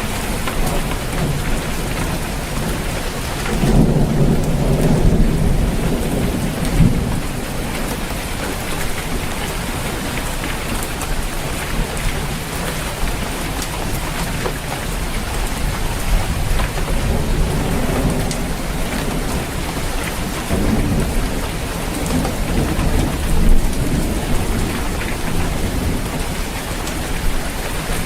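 Steady rain falling on a roof, with thunder rumbling through it twice: a loud roll about four seconds in that lasts a few seconds, and another building about twenty seconds in.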